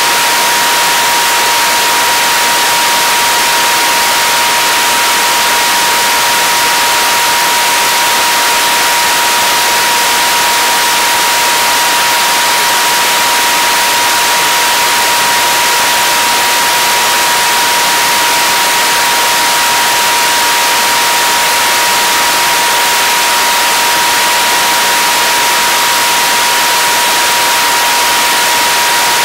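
Airflow rushing past a camera mounted outside at the aft tiedown of a Mooney in flight: a loud, even hiss with a steady high tone running through it.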